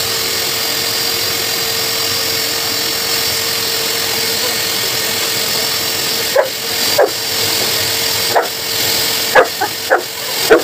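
Pet blow dryer blowing steadily with a steady hum. From about six seconds in, a Saint Bernard barks about seven times in short, loud barks over the blower.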